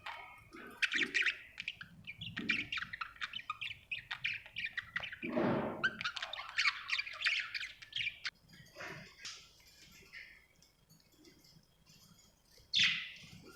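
Budgerigar chirping and warbling in a rapid run of chirps for about eight seconds, with one harsher, lower squawk in the middle, then falling mostly quiet with a few faint chirps before a single loud chirp near the end.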